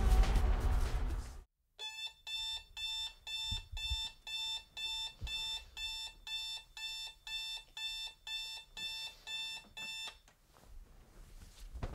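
Digital bedside alarm clock beeping in a steady, even pattern of about two and a half beeps a second. It stops about ten seconds in, when it is switched off. Before it, about a second and a half of music cuts off suddenly.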